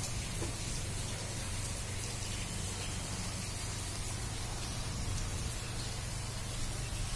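Steady rain falling on a flooded, wet road surface, heard as an even hiss over a steady low rumble.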